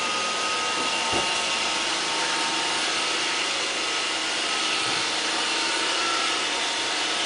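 Roomba robot vacuum running: the steady whirring hiss of its vacuum motor, with a high, even whine.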